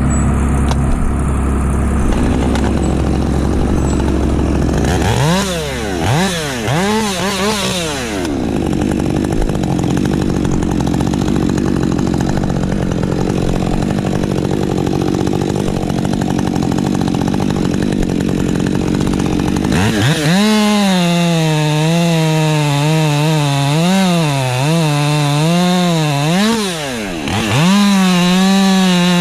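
Woods-ported Husqvarna 550 XP Mark II chainsaw with a 20-inch bar, revved up in a couple of quick blips, then held at high revs for a long cut from about two-thirds of the way in. Its pitch dips and recovers repeatedly as the chain bites into the wood.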